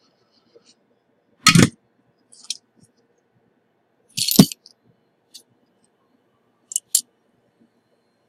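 Small metal hand tools being picked up and set down on a workbench, clattering and clinking: two louder clatters about a second and a half and four seconds in, lighter clicks between, and a quick double click near the end.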